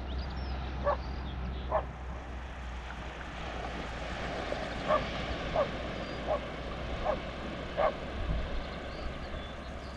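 Open-air ambience: a steady low rumble with about seven short animal calls scattered through it, and a few faint high bird chirps near the start and end.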